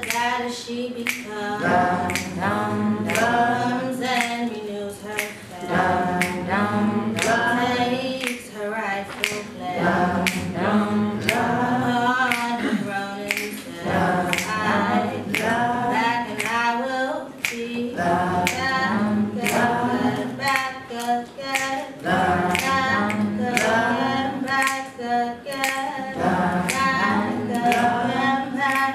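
Unaccompanied group singing, a woman's voice leading with the audience joining in, over a steady beat of finger snaps about two a second.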